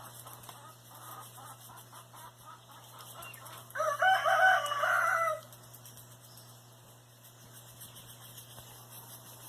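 A rooster crowing once, a single call of about a second and a half that starts about four seconds in and is the loudest sound here.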